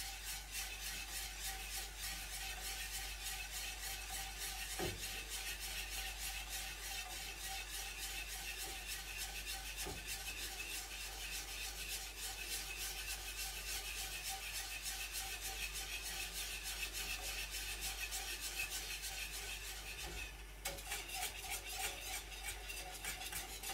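A spatula scraping steadily round the bottom of a saucepan, continuously stirring a custard cream that is slowly starting to thicken on the heat. The stirring falters briefly near the end, then goes on.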